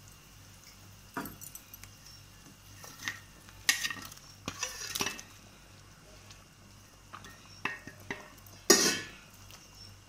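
Steel spatula and plate clinking and scraping against a kadai of bubbling fish curry as fried fish are tipped into the gravy: a string of short knocks and scrapes, the loudest a little before the end, over a faint sizzle.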